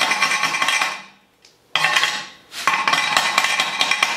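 Wire brush scrubbing a freshly laid MIG weld bead on steel plate: rapid, scratchy metal-on-metal strokes, stopping twice for a moment.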